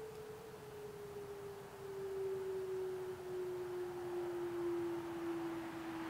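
Whelen WPS-2740 electronic siren sounding a single tone that slides slowly and steadily down in pitch.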